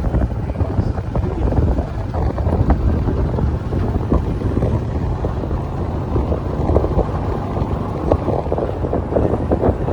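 Wind buffeting the microphone over a steady low rumble of passing road traffic.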